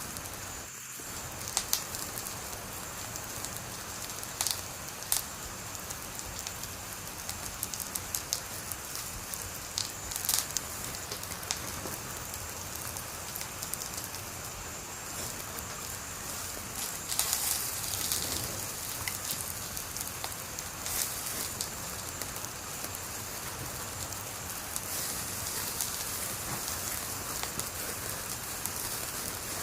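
Wood fire burning with a steady hiss and scattered sharp crackles and pops, a cluster of them about halfway through.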